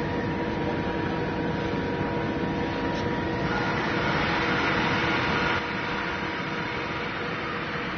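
CDT 301 woodworking drilling machine running with a steady electric-motor hum. A little past the middle its drill bit bores into a wooden panel for about two seconds, adding a higher cutting hiss, then the hum settles back.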